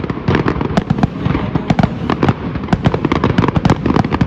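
Aerial fireworks display: a rapid, dense barrage of sharp bangs and crackles, several a second, over a continuous low rumble.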